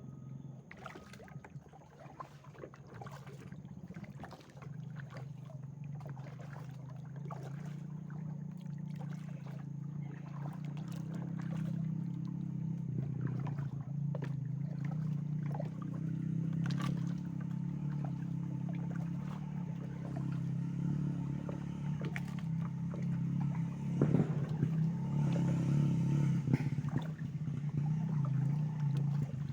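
A boat motor's low, steady hum growing louder through the whole stretch, with small water splashes and drips scattered over it.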